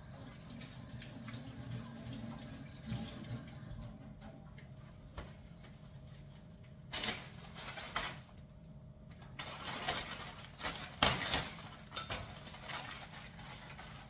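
Kitchen tap running into a sink in two short spells, about halfway through and again near the end, water splashing over a steady low hum.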